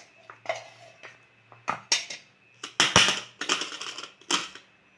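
Kitchen handling noise: an irregular run of scrapes and clicks as a container of ground kadha spice powder is handled, busiest a little after halfway through.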